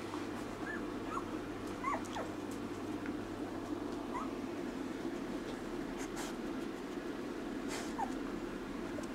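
Twelve-day-old puppies squeaking and whimpering: several short, high little cries, a pair about two seconds in and single ones around four and eight seconds, over a steady low background hum.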